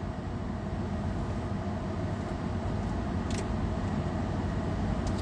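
Steady low rumble of a car heard from inside its cabin, with a faint steady hum throughout. There is one short click about three seconds in.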